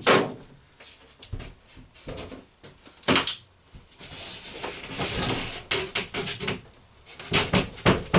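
Wooden countertop piece being worked into a tight fit on the cabinet: sharp knocks about three seconds in and several near the end, with a stretch of scraping as the board slides between them.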